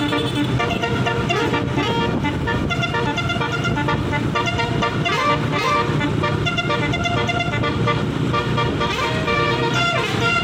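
Tour bus's basuri musical air horn (telolet) with roof-mounted trumpets, playing a quick tune of short notes that keep changing pitch without a break, over the low hum of the bus engine.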